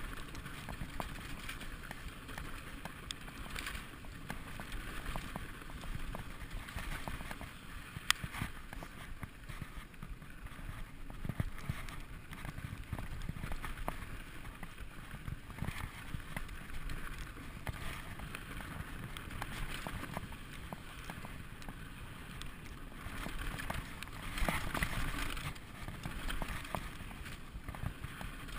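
Specialized SX Trail mountain bike riding down dry, rocky dirt singletrack: a steady rumble of tyres on dirt with a scatter of sharp rattles and clicks from the bike, one sharp knock about eight seconds in and a rougher, louder stretch near the end.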